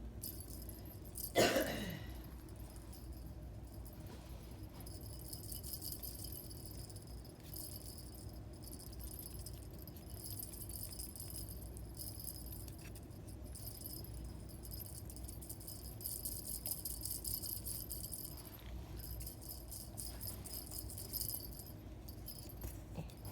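Light metallic jingling, on and off through the stretch, as a small bell or tags shaken by an animal's movements. About a second in comes one short, loud squeal that falls quickly in pitch.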